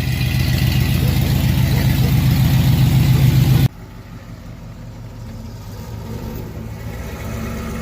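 Camaro Z28's LS1 V8 running loud and steady with newly fitted long-tube headers. A little under four seconds in, the sound drops abruptly to a much quieter engine run, which grows slowly louder.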